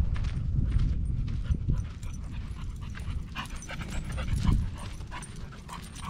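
An American Pit Bull Terrier panting as it trots along a dirt trail, over footsteps scuffing on the dirt. A low rumble is the loudest sound, strongest in the first couple of seconds and again about four and a half seconds in.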